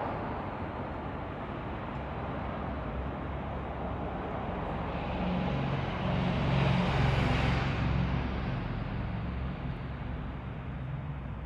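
Steady outdoor rumble with a motor vehicle passing by, its engine growing louder and fading, loudest about seven seconds in.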